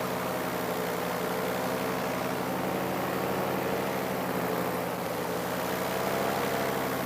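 Paramotor's Polini two-stroke engine and propeller running steadily in flight, a continuous even drone.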